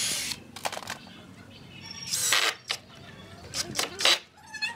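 Cordless drill run in short bursts, boring into pallet wood, with clicks and knocks from the tools being handled between the runs.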